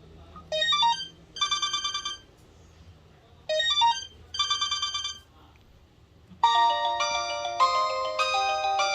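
Samsung Impression (SGH-A877) mobile phone ringtones playing: a short rising run of notes and then a pulsing chord, played twice about three seconds apart, then a different, busier melody starts about six and a half seconds in.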